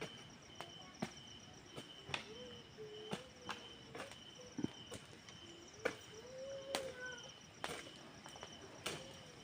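Insects chirring steadily in a garden after rain, one high steady trill and a higher pulsing one, with irregular sharp ticks and taps about once or twice a second.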